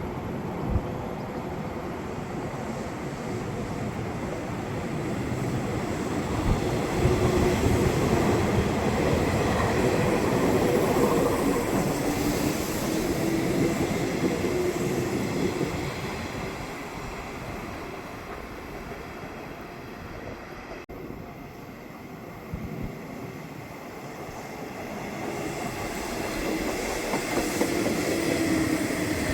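Electric train running on the line: wheels rumbling on the rails with a pitched whine. It is loudest between about seven and fifteen seconds in, dies down past twenty seconds, and swells again near the end with a falling whine as a train comes close.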